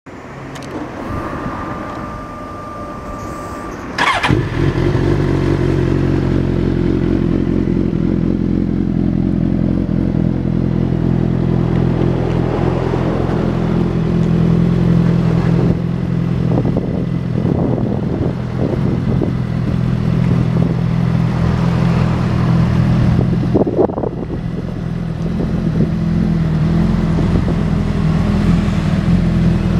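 Suzuki GSX-R1000 L2's inline-four engine, fitted with a Two Brothers aftermarket exhaust, starting about four seconds in after a short steady high tone, then idling steadily.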